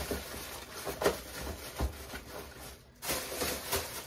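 Rustling and soft knocks of packages being packed and shifted by hand inside a cardboard box, dropping off briefly about three seconds in.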